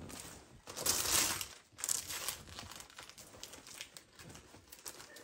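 Gift wrapping paper being crinkled and torn by hand as a present is unwrapped, loudest about a second in, then softer, irregular crinkling.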